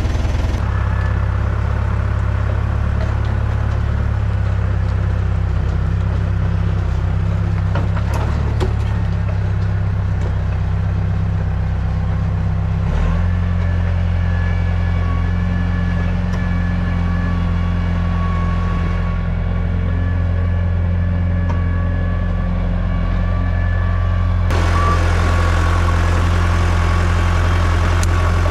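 Komatsu D31 bulldozer's diesel engine running steadily, its note shifting about halfway through.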